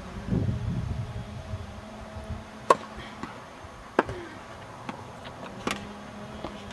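Tennis ball struck by rackets in a rally: three sharp pocks about a second and a half apart, the middle one the loudest, with fainter ticks of the ball between. Wind rumbles on the microphone in the first second.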